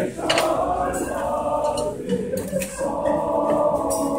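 A group of voices singing a serenade together in chorus, holding long sustained notes with short breaks between phrases.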